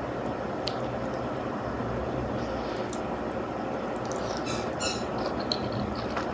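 Wet chewing and slurping of spaghetti and meatballs being eaten, over a steady background hiss, with a few brief high squeaky sounds about four and a half seconds in.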